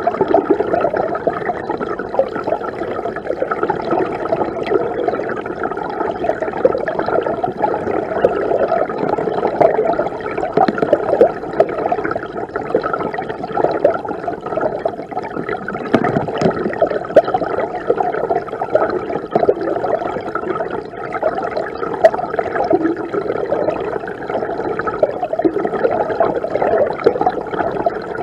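River water rushing and gurgling, heard from within the stream. It runs on without a break and sounds muffled, with little high-pitched hiss.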